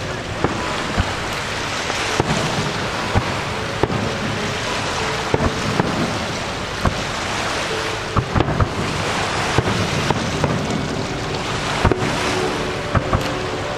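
Aerial firework shells bursting: sharp bangs and pops at irregular intervals, a dozen or more, over a steady rushing noise.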